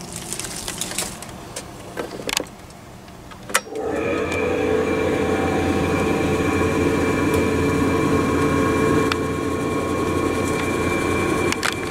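Electrical contactors clicking in the siren's control box, then a Federal Signal Thunderbolt 1003 outdoor warning siren sounding a loud, steady tone from about four seconds in.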